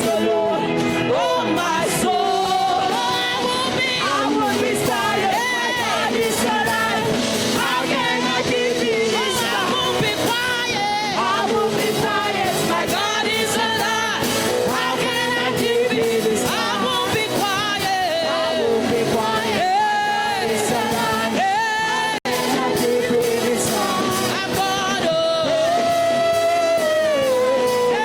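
Live gospel singing with musical accompaniment, the voice wavering and sliding between notes, with some shouting. The sound cuts out for an instant about two-thirds of the way through.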